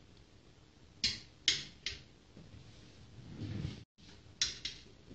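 A metal utensil clinking against the side of a stainless steel stockpot while cooked meat is fished out of the broth: three sharp clinks about a second in, then two more near the end.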